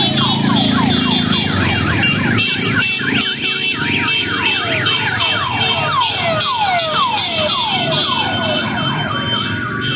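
Several sirens sounding at once and out of step with one another, each repeatedly sweeping down in pitch, over the engines of a slow-moving column of motorcycles.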